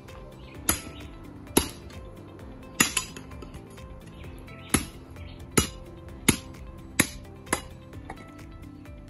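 Machete blade chopping and splitting dry sticks into kindling: about nine sharp, irregular chops, roughly one a second, over steady background music.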